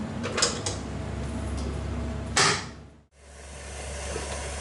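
Kitchen work noises: a few light clicks and knocks, then one louder clatter about two and a half seconds in, over a steady low hum. The sound drops out briefly just after the clatter.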